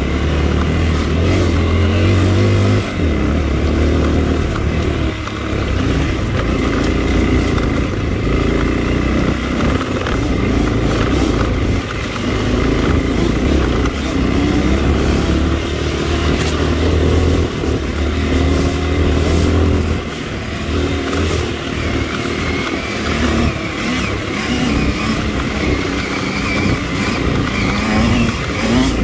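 Dirt bike engine running on the move, its pitch rising and falling as the throttle is opened and closed.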